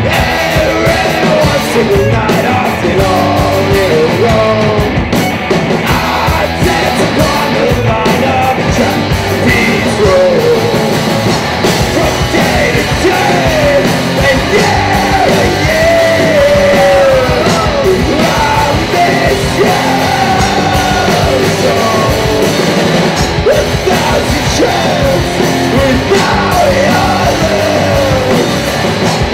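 Live rock band playing loud, with electric guitars, bass guitar and a drum kit, and shouted vocals over it.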